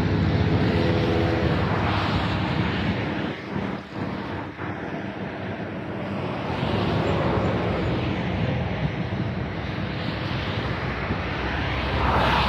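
Jet aircraft engines heard as a steady, broad roar, with brief dips about four seconds in and swelling again near the end.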